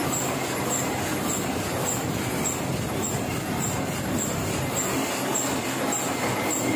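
Heidelberg offset printing press running steadily, with a light high tick repeating a little under twice a second as the press cycles.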